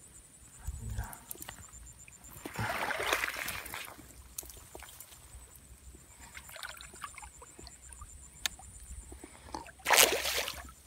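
Reeds and grass rustling for a second or so about two and a half seconds in, then near the end a snakehead (haruan) breaks the surface close to the bank in one loud splash.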